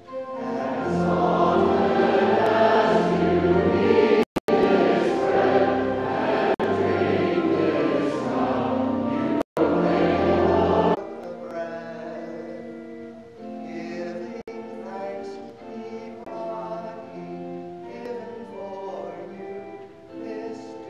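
Choir singing a sung part of the communion liturgy over low held accompaniment notes; after about ten seconds the music drops to a softer, thinner sound.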